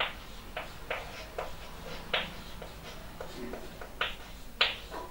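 About nine light, irregularly spaced taps and clicks of a writing instrument on a writing surface as an equation is written out, over a faint steady room hum.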